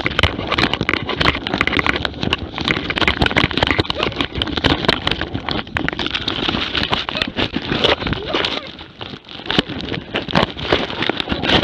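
A close-range struggle between a Jämthund hunting dog and attacking wolves, heard through a GoPro mounted on the dog: dense rustling, knocking and fur rubbing across the camera housing, with animal noises mixed in. It eases off for a moment about eight and a half seconds in.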